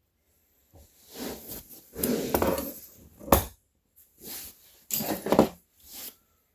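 A large butterfly knife being handled: metal handles and blade clinking and clattering in several separate bursts, with one sharp clack about three and a half seconds in.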